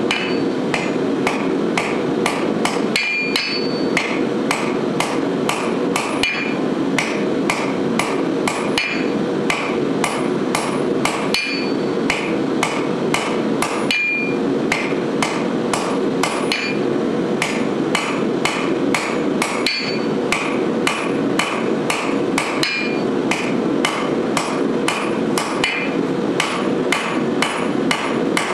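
Hand hammer striking a red-hot steel bar on an anvil in a quick, steady rhythm, each blow with a short metallic ring, as the bar's end is forged into a faceted knob. A steady low rushing noise runs underneath.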